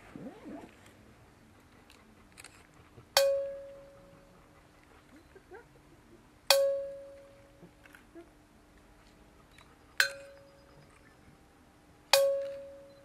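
A metal bell-like instrument struck four times at uneven intervals; each strike rings at one clear pitch and fades over about a second.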